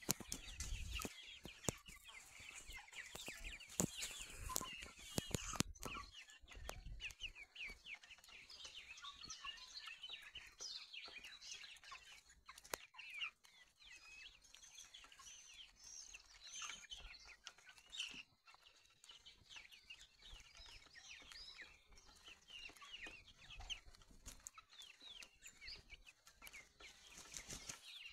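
A flock of chickens clucking while they feed, with many short, high calls running on throughout. Low rumbles come and go, mostly in the first several seconds.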